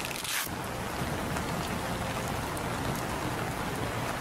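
Steady rain falling, an even hiss, with a brief swish about a third of a second in.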